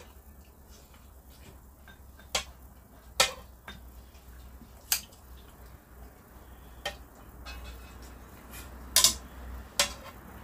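Metal tongs clinking against a pan while turning pork ribs, about seven separate sharp clinks, the loudest a quick pair near the end, over a steady low hum.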